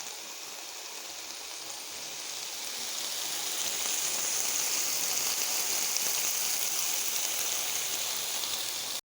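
Stir-fry sizzling in hot oil in a pan, a steady hiss that grows louder about three seconds in, then cuts off suddenly near the end.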